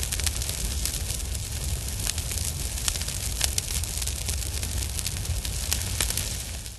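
Fire sound effect: a steady burning rumble and hiss with scattered sharp crackles, fading out at the end.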